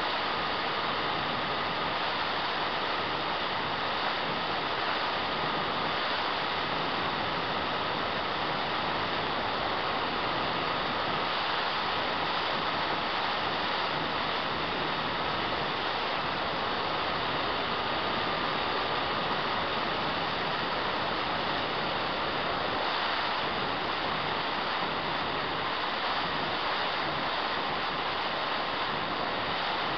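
Onboard sound of an E-flite Apprentice electric RC trainer plane in flight: a steady rush of propeller and airflow noise over the camera, with a thin motor whine that drifts slightly in pitch.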